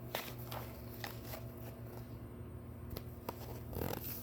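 Faint handling sounds in a small room: several soft, scattered clicks and a brief rustle near the end, over a low steady hum.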